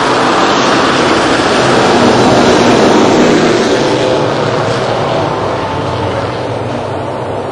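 Rally car passing fast on a gravel road: engine and tyres on gravel grow loud, peak about three seconds in, then slowly fade as it moves away.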